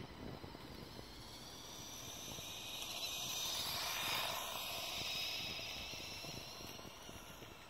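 Electric motors and gearing of a BuWizz-powered LEGO RC café racer motorcycle whining as it drives past. The high whine swells as the bike comes close about four seconds in, then fades as it moves away.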